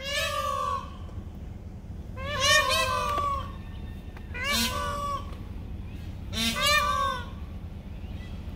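Indian peafowl (peacocks) calling: four loud calls, each about a second long, coming about two seconds apart.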